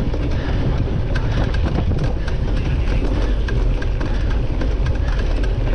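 Cyclocross bike ridden over bumpy grass: a steady wind rumble on the on-bike camera's microphone, with the bike rattling and clicking over the bumps.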